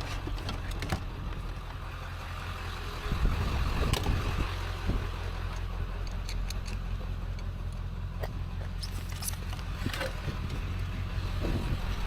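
A vehicle engine idling with a steady low hum, with scattered metallic clicks and knocks over it; the knocks get louder about three seconds in.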